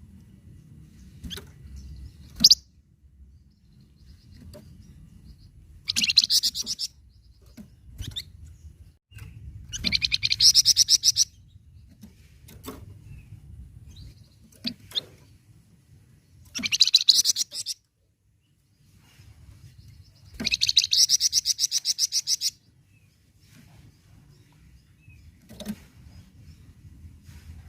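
Flamboyan songbird singing: several short, rapid high trills of one to two seconds each, with single sharp chirps in the pauses between them.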